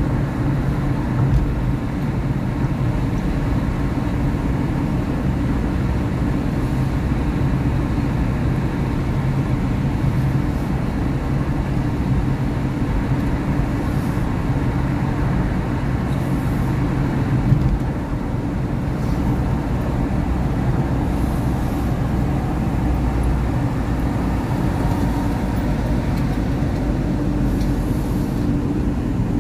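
Steady drone of a car's engine and tyres heard from inside the moving car, with a low hum running through it. A short knock comes about two-thirds of the way through, after which the hum fades and the drone eases slightly.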